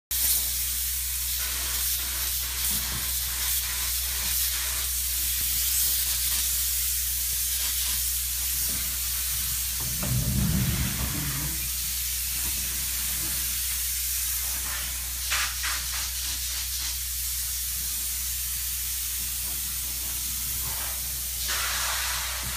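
Spray foam gun hissing steadily as polyurethane foam is sprayed into rim joist cavities, over a steady low hum. A brief low rumble comes about ten seconds in, and the hiss surges a few times later on.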